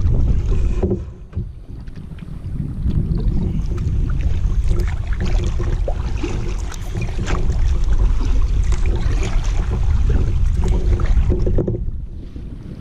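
Kayak paddling: a double-bladed paddle dipping into river water stroke after stroke, with splashes and drips off the blades, over a loud low steady rumble.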